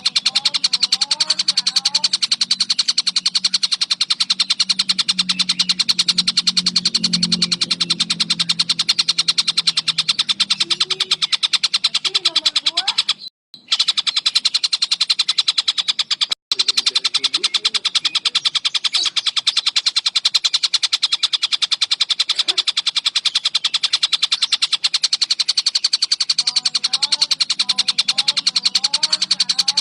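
Tengkek buto kingfisher calling in a rapid, continuous high-pitched chatter, with short gliding lower notes near the start and end. The sound cuts out briefly twice around the middle.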